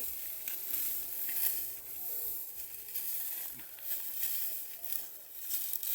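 Steady high hiss with rustling and crackling.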